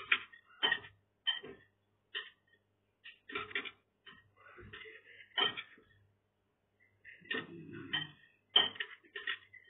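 Chopsticks and a spoon clicking and scraping against a bowl as noodles are tossed, in short irregular clinks about once or twice a second.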